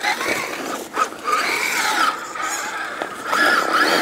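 Electric drive motor and gears of a Vanquish H10 Optic RC trail buggy whining as it crawls over rock, the pitch wavering up and down with the throttle, with a knock about a second in.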